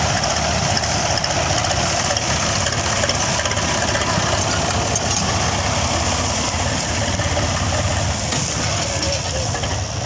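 Diesel farm machinery running steadily, a constant low engine rumble with hiss above it.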